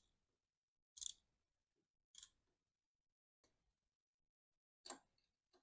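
Socket ratchet clicking in short bursts about once a second, five times, as the rear brake caliper's 12 mm bolts are run back in.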